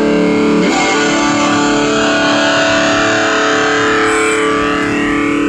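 Distorted high-gain electric guitar through a NUX Mighty Lite mini amp: a held chord, then a new chord struck about a second in and left ringing.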